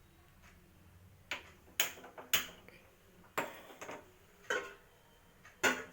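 Seven sharp clinks and knocks, irregularly spaced over about four seconds, some ringing briefly: kitchen utensils and vessels being handled and set down.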